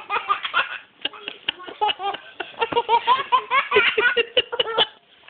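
Toddler laughing in quick, repeated bursts of giggles while being tickled on the tummy, with a short pause about a second in.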